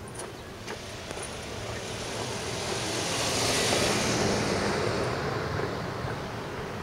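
A vehicle passing close by: its noise swells to a peak around the middle and fades away.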